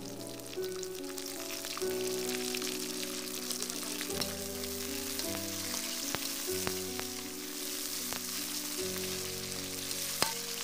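Dried fish (shutki) frying in hot oil with chopped onion, garlic and green chilli in a wok: a steady sizzle with crackles and occasional sharp clicks of the spatula on the pan. A soft background melody plays under it.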